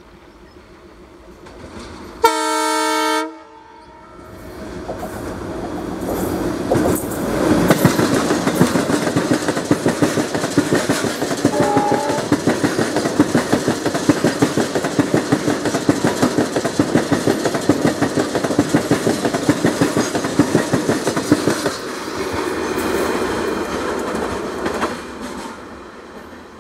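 WDG-3A diesel locomotive sounds its horn once, about a second long, then its engine rumbles past. A long rake of BOBYN hopper wagons follows, with a rapid, steady clickety-clack of wheels over rail joints that fades away near the end.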